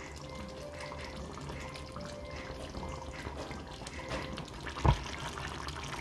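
Rundown sauce with dumplings simmering in a pot, with small repeated bubbling pops. A single thump comes about five seconds in.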